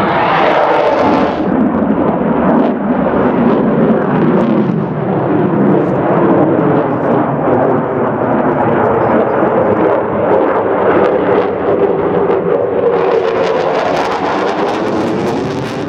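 Fighter jet on afterburner: loud, sustained jet noise with a dense crackle running through it.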